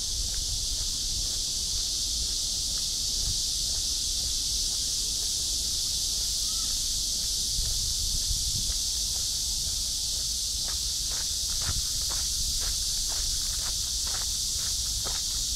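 A steady, high-pitched insect chorus. About two-thirds of the way in, footsteps on the path come in at about two a second.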